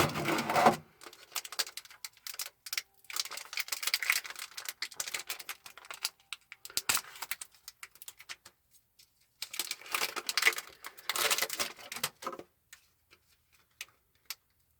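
Foil booster-pack wrapper crinkling and crackling as it is handled and torn open, in several stretches of a few seconds each with short pauses between them.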